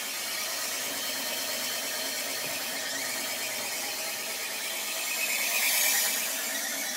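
La Cimbali espresso machine's milk-system cleaning cycle running: a steady pump whine with water hiss, swelling briefly near the end.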